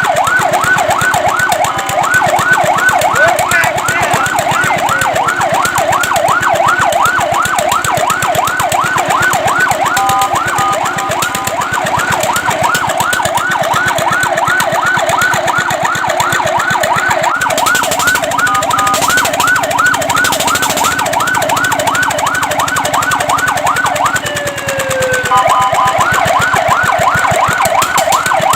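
Fire truck's electronic siren sounding a rapid yelp, about four rising-and-falling sweeps a second. It is broken three times by short stretches of steady multi-tone sound.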